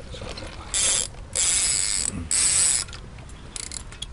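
Fishing reel whirring in four short bursts, each well under a second, with a thin high whine on top, as a carp is being played on the rod.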